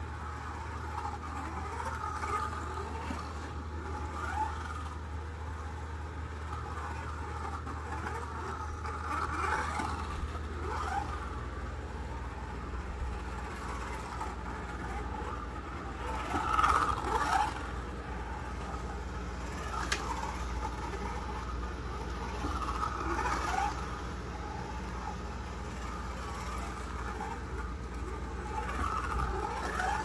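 1:24-scale Eldon Studebaker Commander slot car running laps, its small electric motor whining and the car rattling along the slot. The whine swells each time the car passes close, about six times, loudest about halfway through, over a steady low hum.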